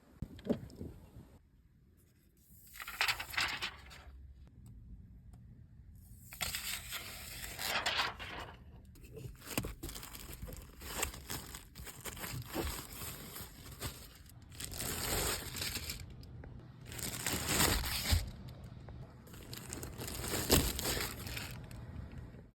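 Plastic protective wrapping being torn and peeled off, in about six rasping pulls a second or two long, with crinkling between them.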